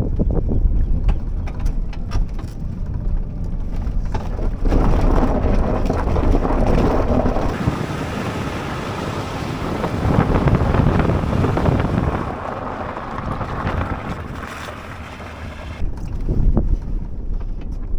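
Wind buffeting the microphone: a loud, steady rumbling rush with no distinct pitch, swelling and easing a little as it goes.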